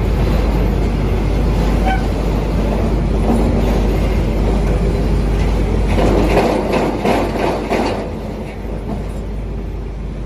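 XCMG XR360 rotary drilling rig running, a steady heavy-machinery noise with a low hum, with a stretch of clattering about six to eight seconds in, after which the low hum eases.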